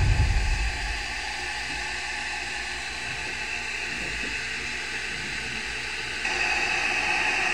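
Stainless-steel electric kettle heating water, a steady hiss that steps up louder and brighter about six seconds in. A brief low rumble comes at the very start.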